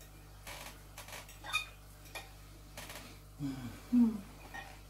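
Eating sounds: a metal fork clicking and scraping against a ceramic bowl of spaghetti, a few light clicks in the first three seconds. Near the end come two short low hums with a falling pitch while chewing, the second the loudest.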